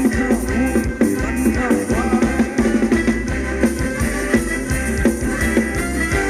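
Live Thai ramwong dance band playing, a drum kit keeping a steady beat under pitched instruments.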